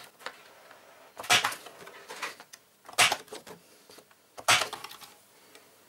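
Three sharp clacks about a second and a half apart, with a smaller one between the first two, as a plastic paper-crafting punch board and its card stock are handled and shifted on the work mat.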